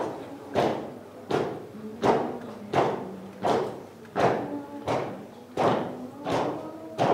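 A slow, steady percussion beat, about one stroke every 0.7 seconds, each stroke dying away before the next, with a faint held low tone beneath.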